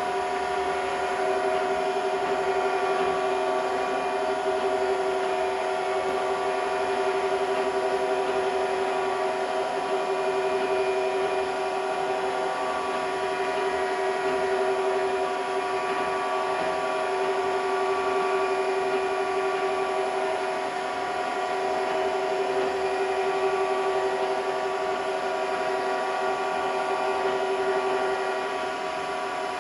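Bridgeport milling machine's belt-driven step-pulley head running steadily at its 660 RPM step: a constant mechanical whine of several steady tones, a little quieter near the end.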